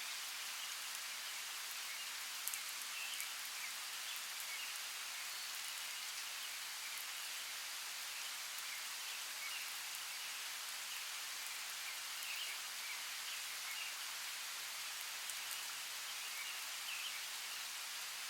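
Steady rainforest rain: an even hiss of rainfall with scattered drops tapping and faint short chirps sounding through it.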